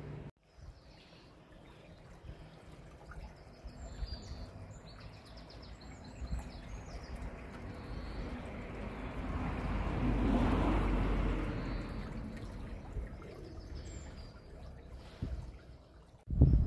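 Stream water rushing through a stone-walled channel, swelling to its loudest about midway. Small birds chirp now and then.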